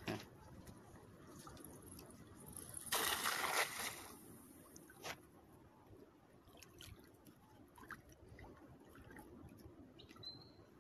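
A cast net lands on shallow estuary water with one splash about three seconds in, lasting about a second. After it, faint sloshing and small drips follow as the net's line is hauled back in.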